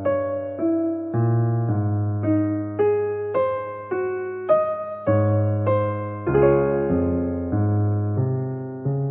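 Background piano music: a slow, gentle melody of single struck notes, about two a second, over low bass notes. A final chord rings on and fades near the end.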